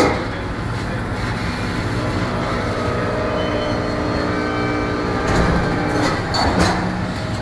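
Rotary coal-car dumper machinery and the loaded railcar under its clamp: a steady mechanical drone with several held whining tones. There is a sharp metallic clank right at the start and two louder noisy swells near the end.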